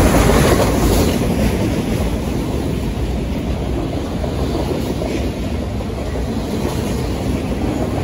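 Wheels of freight train autorack cars rolling past on the rails: a steady rumble, a little louder in the first second or so, with a few faint clicks.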